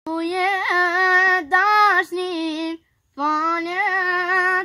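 A young child singing a song in long held notes, in two phrases with a short breath between them about halfway through; a lower second voice or tone joins under the second phrase.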